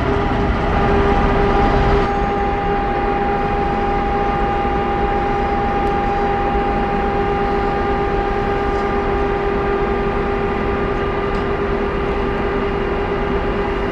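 Electric locomotive standing with its machinery running: a steady low rumble with a constant high-pitched hum.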